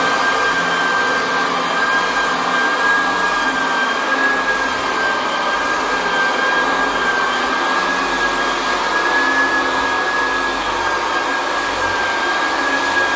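Floor edger sanding hardwood flooring along the wall: a loud, steady motor whine over the even hiss of the sanding disc.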